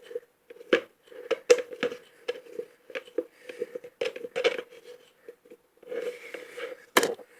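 Slime being stirred by hand in a bowl: irregular sticky clicks and taps, two or three a second, over a faint steady hum.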